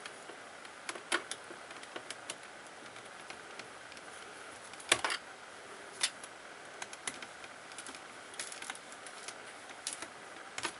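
Small Phillips screwdriver clicking and ticking against the tiny screws of a laptop's metal LCD frame as they are backed out, with irregular light clicks and a sharper click about five seconds in.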